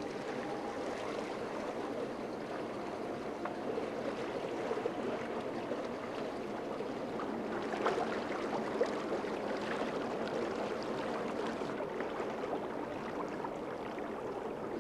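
Steady gurgling and lapping of water around a small fishing boat, with a couple of faint knocks about eight seconds in.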